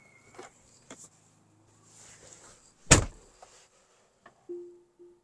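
Tesla Model Y driver's door: a short power-window whine and clicks as it opens, rustling as someone gets into the seat, then the door shuts with one loud thud about three seconds in. Plucked music notes start near the end.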